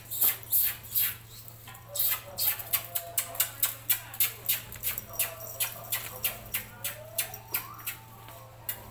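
American bully puppies whining and squeaking in short high cries, over a fast, regular run of sharp clicks, about three or four a second, that is louder than the puppies.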